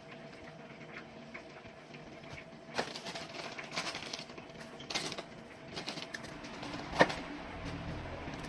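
Kitchen handling noises while preparing food: irregular light clicks, taps and rustles starting about three seconds in, with one sharper tap about seven seconds in, over a faint steady hum.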